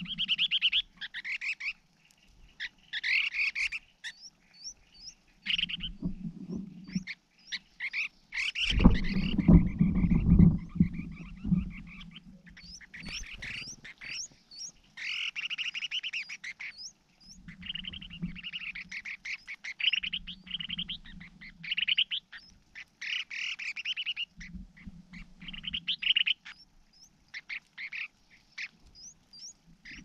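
Animal calls in repeated bouts: rapid rattling calls with short high chirps among them. A loud low rustling comes from about nine to twelve seconds in.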